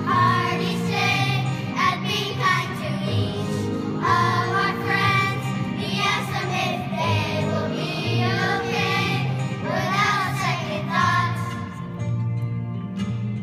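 A group of young children singing a song together in unison over instrumental accompaniment with steady low notes; the voices drop away briefly near the end.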